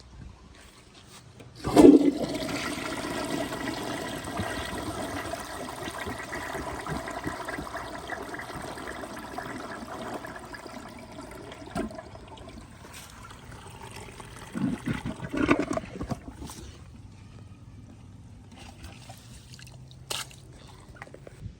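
Crane Santonia toilet flushing: a sudden rush of water about two seconds in, running strongly for several seconds and slowly easing, with a few gurgles around fifteen seconds, then quieter steady running water.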